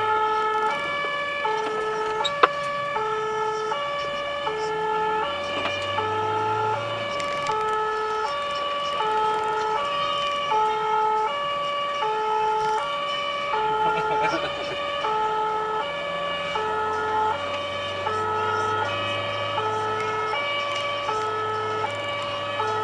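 Two-tone emergency siren of a fire brigade command car, heard from inside the car, alternating steadily between a lower and a higher pitch on an emergency run. Engine and road noise run low underneath.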